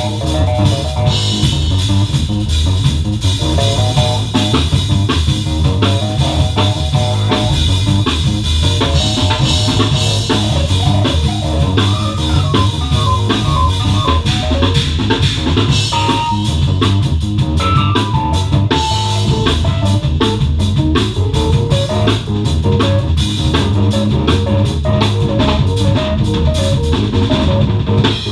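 Drum kit and keyboard playing an improvised funk groove over a strong, steady bass line.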